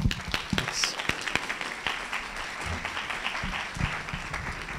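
Audience applauding: many hands clapping steadily, with a few low thumps mixed in, thinning out at the end.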